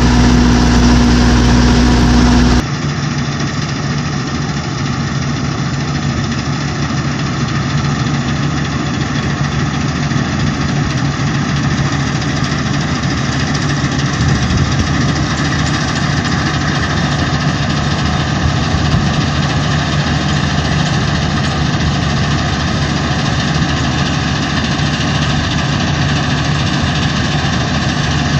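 MDW combine harvester running steadily while threshing grain: a constant diesel engine drone mixed with the rush of the threshing and cutting gear. For the first two seconds or so a different, louder engine is heard, cut off abruptly.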